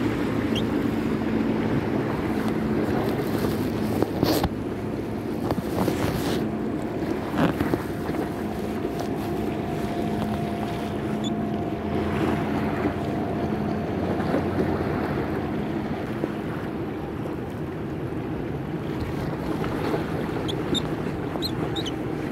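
Motorboat engine humming steadily as boats pass on the water, under wind noise on the microphone and the wash of the sea. A few sharp clicks come about four, six and seven seconds in.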